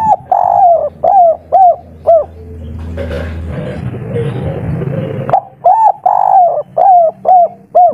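Spotted dove cooing in the 'kuk 3' style: two phrases a few seconds apart, each a long drawn coo followed by three short clipped coos.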